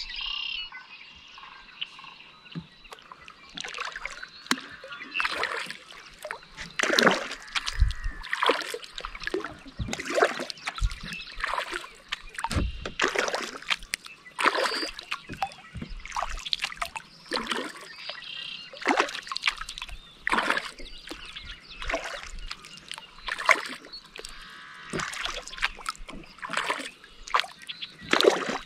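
Kayak paddle strokes on calm water: the blades dip in and splash, one stroke about every second and a half, with water dripping off the paddle between strokes. The strokes start a few seconds in.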